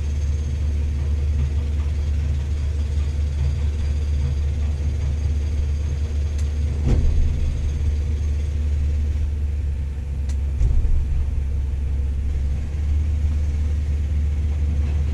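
Steady low mechanical hum of a Saez TLS80 tower crane's machinery running, with a short knock about seven seconds in and another near eleven seconds.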